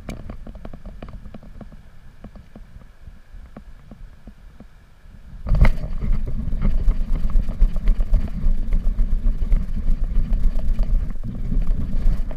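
Wind buffeting an action-camera microphone as a low, gusty rumble. It jumps much louder about five and a half seconds in, with scattered small clicks and knocks of handling throughout.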